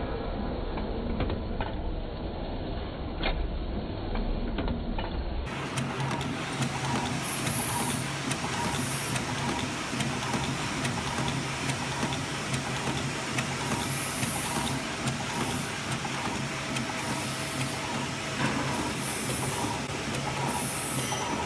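Automatic woven satin label cutting and end-folding machine running, with a steady motor hum and rapid fine clicking from its mechanism. Short bursts of hiss come every few seconds. The sound changes abruptly about five seconds in.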